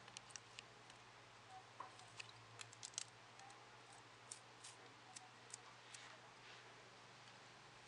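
Faint, scattered clicks of small plastic LEGO parts, bricks and wheels, being handled and pressed together, busiest around two to three seconds in.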